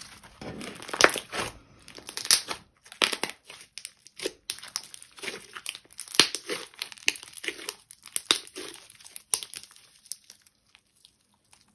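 Hands squishing, stretching and folding a thick clear-coat slime with small charms mixed in, giving an irregular run of crackly clicks and pops that thins out near the end.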